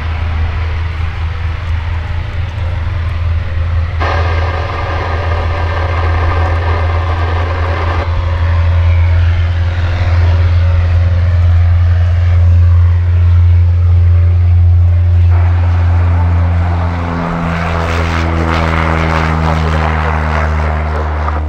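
Propeller aircraft engine running close by over a steady low rumble, its pitch shifting in the last few seconds.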